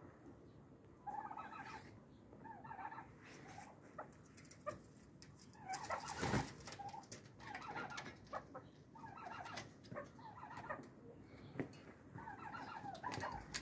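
Chickens clucking, with short calls coming in repeated clusters. About six seconds in there is a loud, brief flurry of wing flapping.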